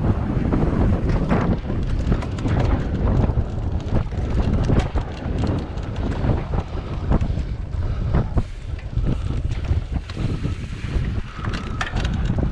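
Wind buffeting the microphone of a cyclocross bike's onboard camera while riding, with frequent short rattles and knocks as the bike rolls over a rough dirt track.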